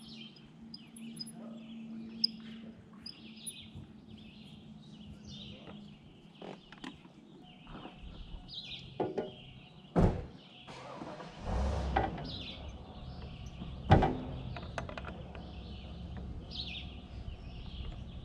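Birds chirping over a steady low hum, with a few sharp knocks and clunks about ten and fourteen seconds in, and a louder low rumble that comes in just past the middle.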